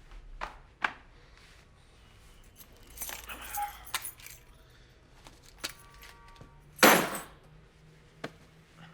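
Keys jangling and clothes rustling as a man is patted down, with scattered light clicks and a short, loud rustling knock about seven seconds in.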